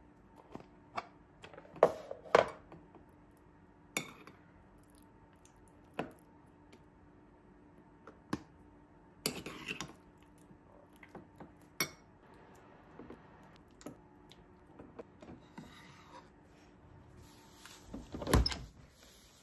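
A spoon tapping, clinking and scraping against a bowl as Greek yogurt is scooped onto sliced bananas and stirred in, in scattered strokes with pauses between. A louder knock comes near the end.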